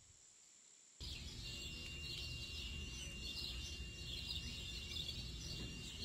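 Outdoor ambience that starts abruptly about a second in: many birds chirping busily, with a steady thin high tone and a low rumble underneath.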